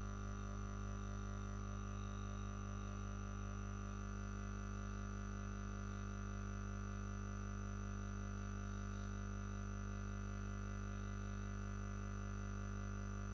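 A steady low hum made of several held tones that do not change.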